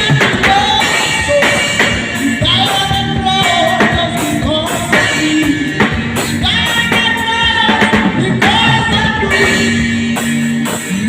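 A song with lead singing and a drum kit playing along, with drum hits running steadily under the vocal melody.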